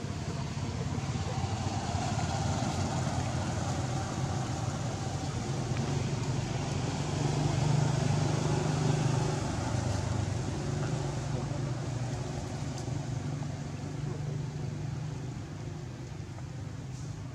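Motor vehicle engine running in the background, a steady low hum that grows louder about halfway through and then fades again, as a passing vehicle does.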